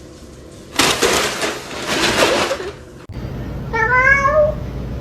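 A cat meowing: one rising call near the end, preceded by about two seconds of loud, noisy hiss or rustle that stops abruptly.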